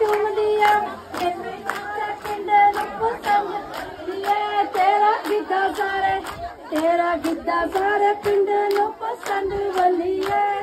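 A group of women singing a Punjabi folk song together, with hand clapping keeping time at about three claps a second.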